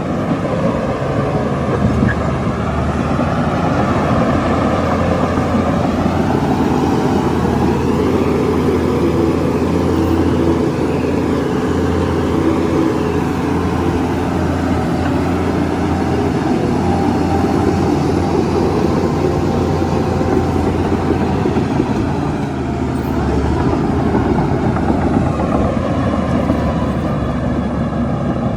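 Heavy diesel engine of earthmoving machinery running steadily under load, its pitch wavering a little as the load changes.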